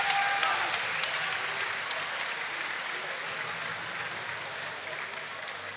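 Arena crowd applauding at the end of a kickboxing bout, the applause slowly dying down.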